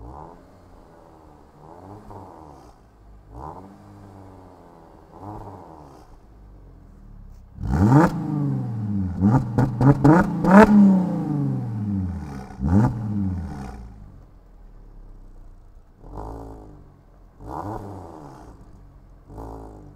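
Mercedes-Benz E350's 3.5-litre naturally aspirated V6 revved in short blips through its stock mufflers fitted with two vacuum exhaust valves. The revs are quieter with the valves closed, much louder from about eight seconds in with the valves open, then quieter again with the valves closed near the end.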